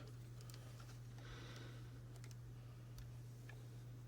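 Faint clicks and a brief rustle of a small plastic device being handled, over a steady low hum.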